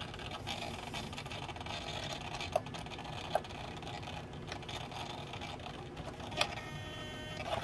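Light clicks and taps of a steel steering rod and small plastic servo parts being handled and fitted. About six seconds in, after a click, a powered micro servo starts a steady electric buzz.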